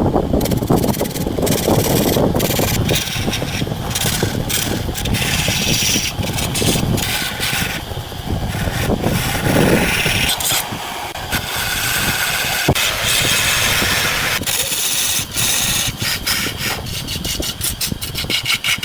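Power tool working wood: a steady motor noise with a rough rasping grind that keeps breaking off and picking up again as the tool is pressed and lifted.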